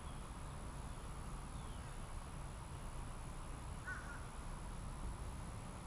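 Outdoor ambience: a steady low rumble with a faint steady high whine, faint chirps early on, and a single short bird call about four seconds in.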